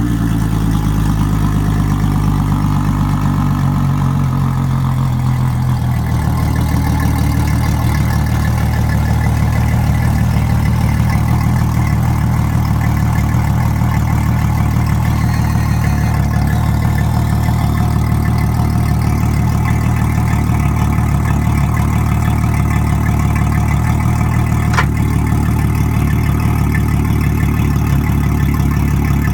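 Yamaha F250 250 hp four-stroke V6 outboard idling steadily just after start-up, run out of the water on a flushing hose. Its revs settle down a step about six seconds in. One sharp click late on.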